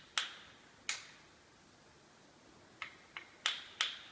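Small hammer tapping a wooden hand plane to set its blade. Six sharp taps: two in the first second, then four in quicker succession near the end.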